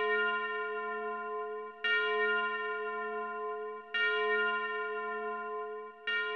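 A single bell tolling, struck about every two seconds, three strokes in all, each ringing on with a slow decay until the next.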